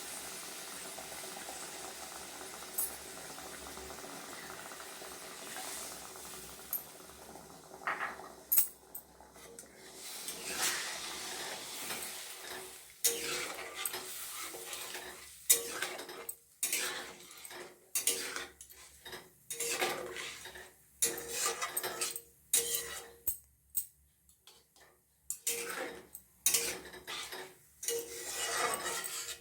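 Fried onion-tomato masala sizzling in a kadhai after water is added, the hiss fading over the first eight seconds or so. Then a spoon scraping and knocking against the kadhai in irregular strokes as the curry is stirred.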